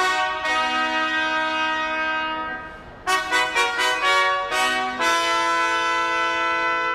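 Brass fanfare of trumpets and trombones: a long held chord that fades away, then, about three seconds in, a run of short notes leading to another long held chord.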